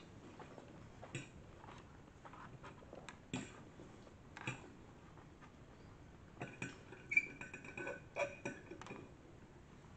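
Metal fork clicking and scraping on a ceramic plate while twirling noodles: scattered light clicks, then a denser run of ringing scrapes about two-thirds of the way in.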